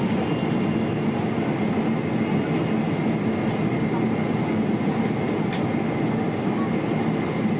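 Steady jet airliner cabin noise from a seat over the wing during the landing approach: engine and airflow noise with a thin steady whine on top. A faint click about five and a half seconds in.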